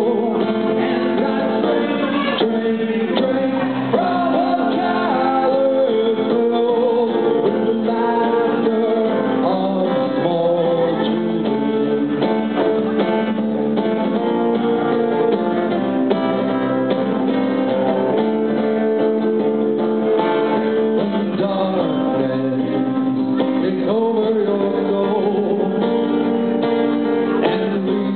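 A male singer with an acoustic guitar, performing a song live.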